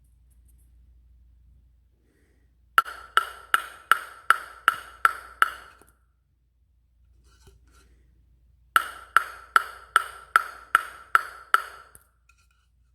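A table tennis ball bounced on a Tmount KimTaekSoo ProBlade F700 racket, giving crisp pings with a short ring. There are two runs of about eight even bounces, the first starting about three seconds in and the second about nine seconds in.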